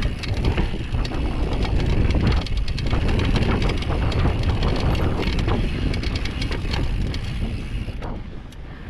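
Downhill mountain bike riding fast over a rocky dirt trail: wind buffeting the microphone, tyres crunching over dirt and stones, and many short knocks and rattles from the bike over the rocks. It grows quieter about eight seconds in.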